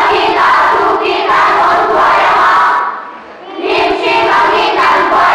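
A group of children reciting Bible verses aloud in unison, a chant-like group voice in phrases of a few seconds with a short pause about three seconds in.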